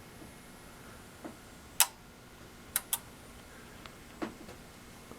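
Samsung HP T4264 42-inch plasma TV clicking from inside as it cycles on and off without ever coming on: a sharp click, then a quick double click about a second later, with softer, duller clicks in between. This is the fault that began with two loud pops at switch-on, which the owner could not trace to any blown capacitor.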